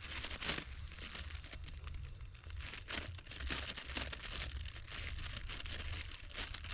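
Continuous crinkling, rustling noise full of small clicks, over a low steady rumble.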